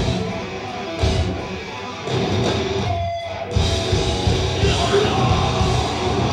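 Metal band playing live, with distorted electric guitars and drums. About three seconds in the band stops briefly, then comes back in at full volume.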